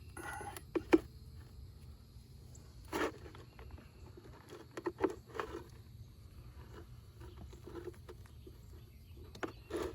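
Scattered light knocks and clicks from handling tools and fittings, a few separate strikes with pauses between, over a steady low hum.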